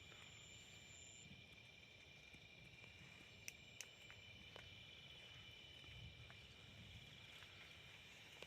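Faint chorus of crickets trilling steadily, with two short clicks about three and a half seconds in.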